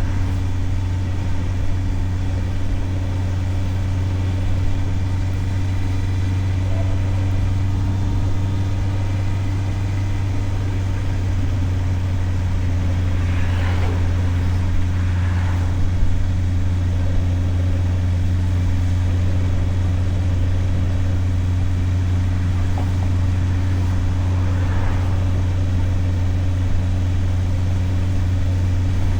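Motorcycle engine running at a steady, unchanging pitch, heard from a helmet camera. Faint brief swells of passing street noise come in around the middle and near the end.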